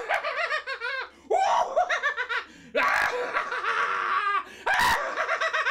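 A man laughing maniacally in loud, wavering runs of "ha ha ha", each run broken by a short hissing breath.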